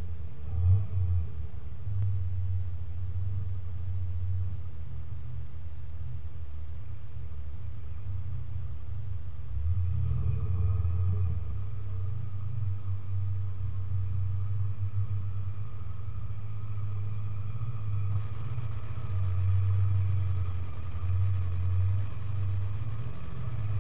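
A 4x4's engine running at low revs on an off-road climb, its deep rumble swelling with throttle about ten seconds in and again near the end.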